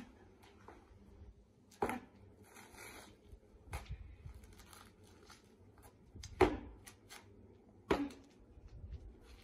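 Bajiquan form practice: four sharp stamps and slaps of a martial artist's feet and hands, the loudest about two-thirds of the way through, with a brief swish of clothing around two and a half seconds in.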